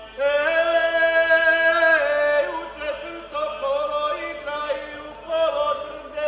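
A man singing a Serbian folk song solo and unaccompanied, in full voice. A long held note of about two seconds opens it, then shorter melodic phrases follow.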